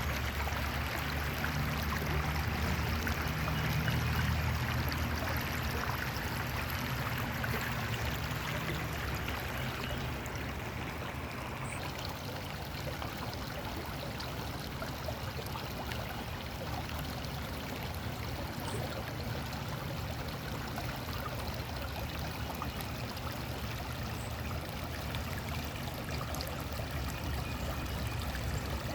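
Scull Creek's water running steadily over its bed, with a low rumble that is stronger for the first ten seconds or so and then eases.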